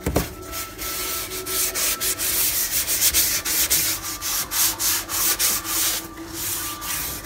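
A sponge scrubbing a wet stovetop in rapid back-and-forth scratchy strokes, with a brief break about six seconds in.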